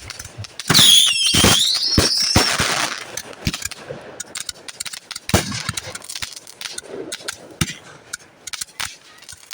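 Consumer fireworks going off: sharp bangs about a second in, with a shrill wavering whistle over them, followed by scattered cracks and pops.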